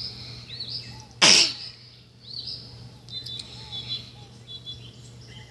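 Small birds chirping in short repeated calls, with one brief loud rush of noise about a second in.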